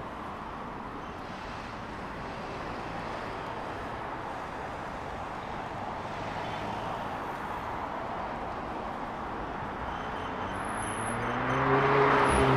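Steady city street traffic noise, with a car passing close near the end: it grows louder, peaks, and its engine note drops slightly as it goes by.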